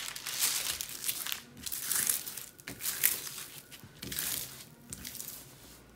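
Clear plastic protective film on a diamond painting canvas crinkling as hands press and smooth it, in irregular crackles that grow quieter near the end.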